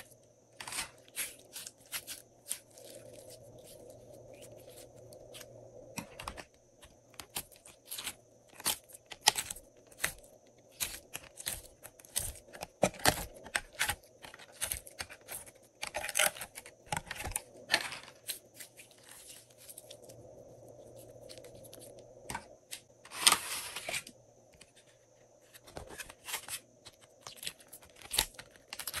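Hands squeezing and pulling glossy slime through a clear plastic blister tray: an irregular stream of sticky clicks, pops and plastic crackles, with longer crackling stretches about halfway through and again about three quarters of the way in.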